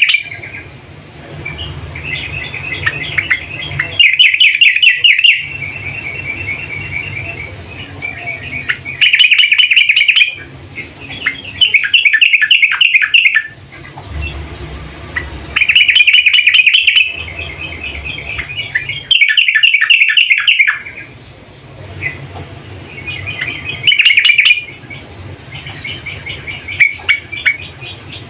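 Yellow-vented bulbul (trucukan) calling. Loud bubbling phrases of about a second or two recur every few seconds, with softer chattering between them; the title gives these as a female's calls that draw a male. A steady low hum runs underneath.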